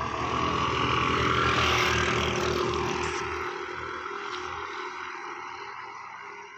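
Two 125 cc single-cylinder scooters, a Honda Activa 125 and a Suzuki Access 125, accelerating hard from a standing start at full throttle. Their engine note is loudest about two seconds in, then fades as they pull away.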